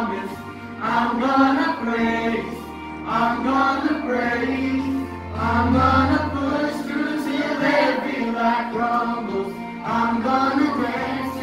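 Youth choir and soloists singing a contemporary worship song: long sung phrases that swell and break every second or two, over a low, steady bass accompaniment.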